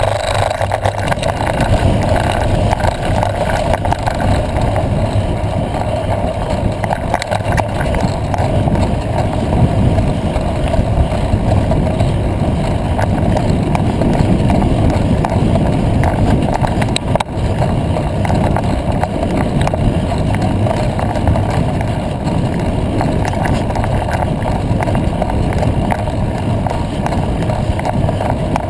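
Steady loud rumble of a mountain bike riding over a dirt road, picked up by a camera mounted on the bike: tyre and frame noise mixed with wind on the microphone. One sharp knock cuts through it partway along.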